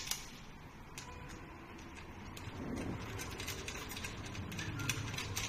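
Light metallic clicks and scrapes of an Allen key turning a bolt on an e-bike's handlebar stem. There is a sharp click at the start, another about a second in, and a run of small ticks through the last couple of seconds.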